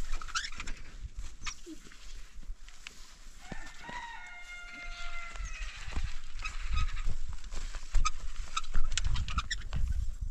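A rooster crows once, about three and a half seconds in: one call of about two seconds that drops in pitch at its end. Scattered knocks and clicks and a low rumble run under it.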